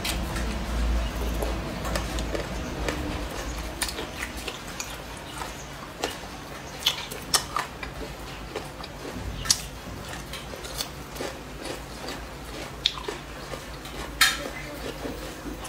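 Eating sounds: chewing of boneless chicken feet and cucumber, broken by irregular sharp clicks and crunches from bites and wooden chopsticks on the bowl.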